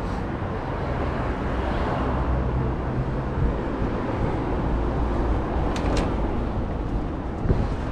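City street traffic: a steady rumble of road traffic, heaviest in the lower range and louder in the first half as a vehicle goes by. Two brief sharp clicks come close together about six seconds in.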